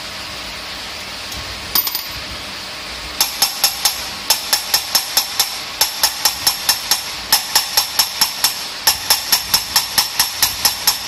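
Engine valve being hand-lapped into its seat in a cast-iron cylinder head, the lapping stick spun back and forth between the palms. From about three seconds in it gives quick, rhythmic metallic grinding strokes, about five a second, in runs with short pauses, over a steady hiss. A brief clatter comes just before.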